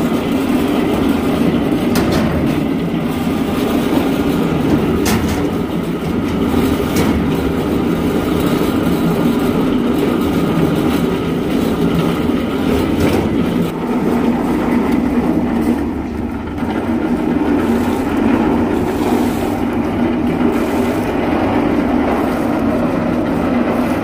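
JZC350 drum concrete mixer running, its drum turning with a steady mechanical rumble and clatter.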